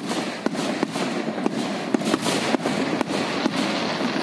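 Aerial firework shells bursting: a run of sharp bangs, about two or three a second, over a continuous noisy rush.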